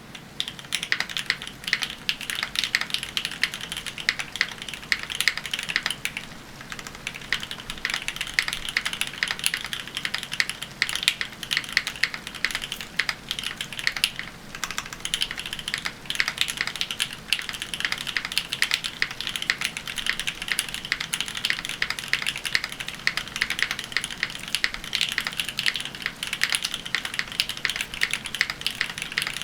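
Fast, continuous typing on a Fjell mechanical keyboard with a POM plate and Marshmallow switches, a dense stream of key clacks with a couple of brief pauses.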